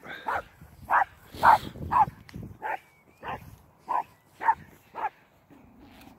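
Dog barking over and over, about two barks a second, stopping shortly before the end.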